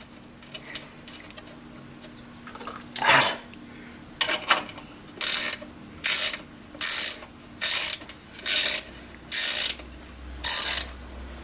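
Ratcheting strokes, about one a second, as the snowblower's chute-control handle is worked back into place; the first few are scattered, then they settle into a steady rhythm from about five seconds in.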